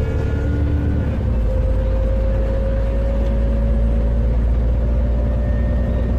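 Alexander Dennis Enviro400MMC double-decker bus heard from on board while under way: a steady low engine rumble with a thin whine that climbs slowly in pitch. This is the strange noise the bus makes when accelerating, of unknown cause.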